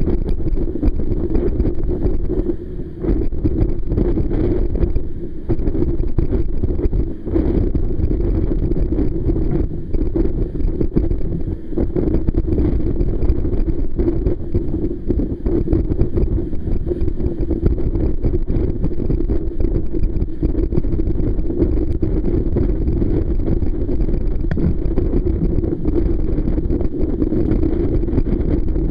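Force 8 gale wind blowing hard over a sailing yacht and buffeting the microphone, with the rush of water and spray along the hull. A steady loud roar with a few brief lulls.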